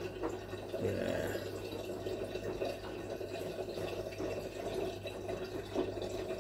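Curry chicken simmering in a covered electric pot: a steady bubbling under the lid, with a continuous low hum underneath.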